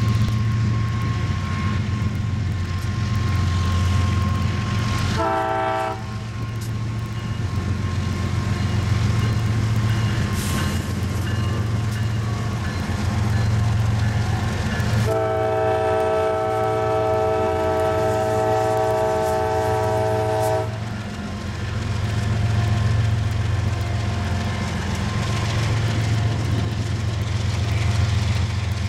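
BNSF freight train's diesel locomotives running past with a heavy, pulsing engine drone. The air horn sounds a chord of several notes: a short blast about five seconds in, then a long blast lasting about six seconds.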